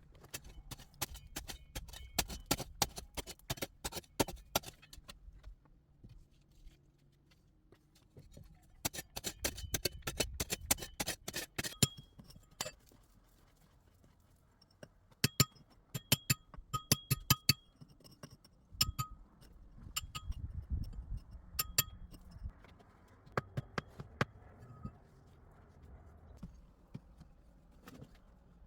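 Metal tool striking rock in quick runs of sharp clinks, several a second, some strikes ringing, with short pauses between the runs.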